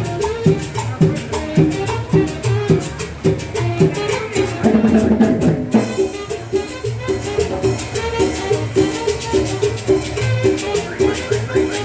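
Dance music with a quick, steady percussion beat, with a held low note about halfway through.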